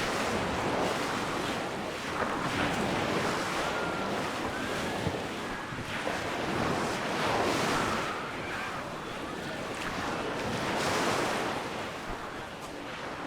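Sea waves breaking and washing on the shore, the surf swelling and easing about three times, with wind buffeting the microphone.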